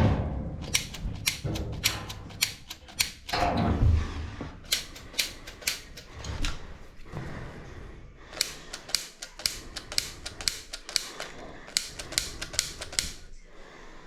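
Sharp clicks of a spark igniter pressed over and over to light a furnace pilot, in runs of about two to three clicks a second with short pauses between runs.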